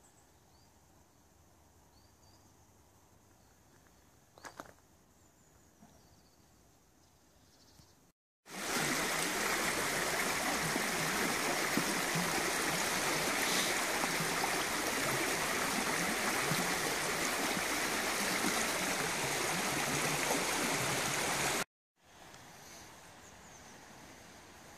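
Fast-flowing stream rushing over rocks, a loud steady rush of water that starts abruptly about eight seconds in and cuts off abruptly near the end. Before and after it there is only a faint outdoor background.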